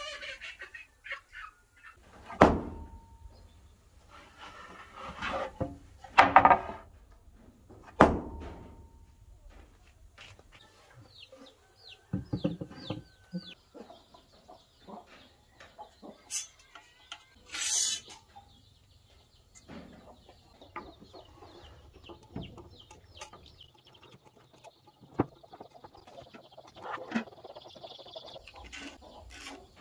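Scattered sharp knocks and handling noise of wood and tools being moved about, a few loud ones in the first third, with chickens clucking in the background.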